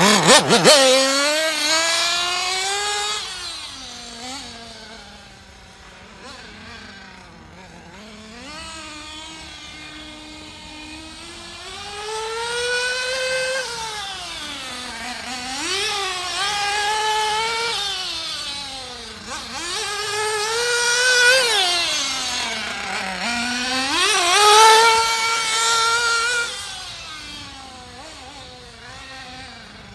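Argus R83 three-port 3.5cc nitro two-stroke engine of a 1/8 off-road RC buggy during break-in, revving loudly as the car pulls away, then fainter as it laps the track. Its high engine note rises and falls with the throttle every few seconds and grows louder and quieter as the car comes nearer and moves off.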